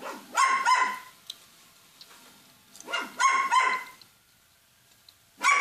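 A dog barking in pairs of short, howling barks: two pairs about two and a half seconds apart, and another bark starting near the end.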